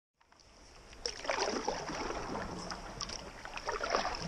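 Water splashing and sloshing around a stand-up paddleboard under way: the paddle dipping and pulling through the water, with water running against the board, heard close up from the board. It fades in over about the first second and is busiest in two splashy spells.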